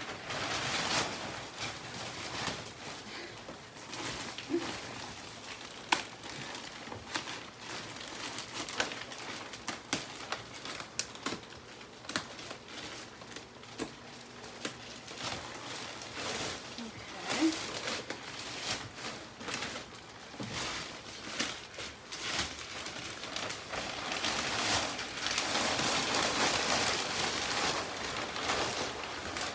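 Plastic wrap crinkling and crackling as it is pulled and peeled off a compressed memory foam mattress, with scattered sharp clicks; the rustling grows denser and louder near the end.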